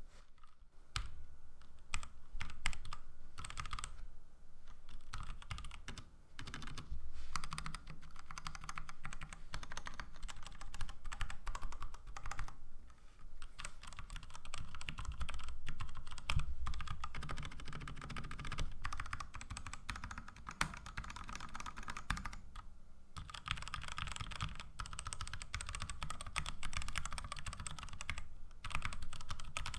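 Continuous fast typing on an Ajazz mechanical keyboard fitted with Outemu Silent White switches, a dense run of key clicks with a short pause a little past the middle.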